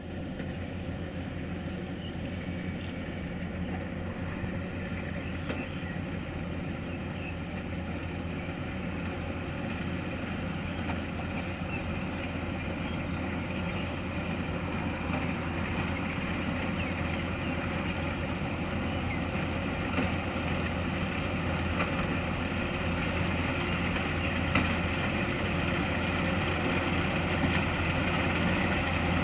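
Kubota DC-105X rice combine harvester running, its diesel engine and threshing machinery giving a steady drone that grows gradually louder.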